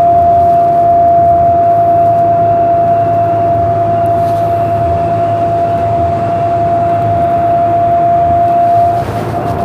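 Siemens S200 light rail train running, heard from inside, with a low rumble and a single steady tone over it that cuts off about nine seconds in.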